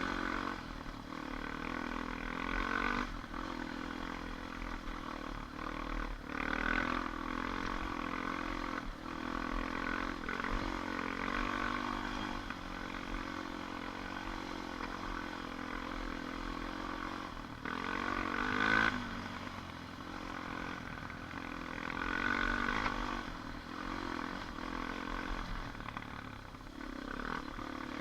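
ATV engine running over the trail, its pitch and loudness rising and falling with the throttle, with several brief louder revs, the strongest a little past the middle.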